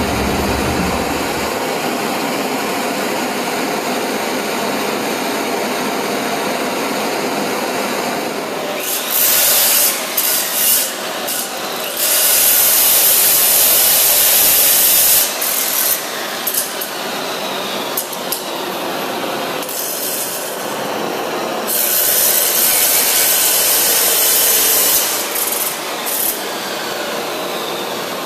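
Abrasive chop saw grinding through steel in a series of loud cuts, the longest about three seconds, with short pauses between. Under it runs the steady rush of a forge's electric air blower.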